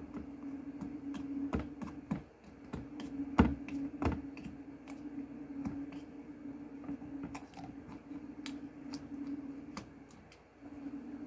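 Fingernails picking at and tearing the plastic safety band around the cap of a bottle of coffee creamer: a run of irregular small clicks and crackles, with two louder snaps about three and a half and four seconds in. A steady low hum runs underneath.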